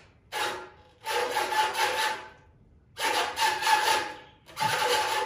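Rhythmic rasping strokes: four in a row, the first short and the rest each about a second long, with short gaps between them.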